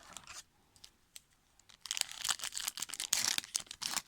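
Trading card pack wrapper being torn open and crinkled, a dense crackling rustle that starts about halfway through after a few faint clicks.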